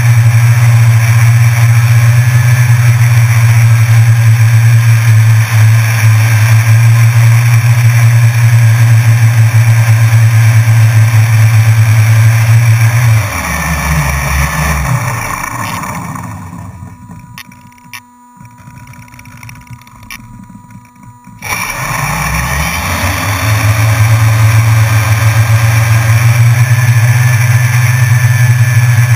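Drone's electric motors and propellers running loudly at a steady pitch. About halfway through they wind down and stop, leaving near silence for a few seconds, then spin back up to full speed.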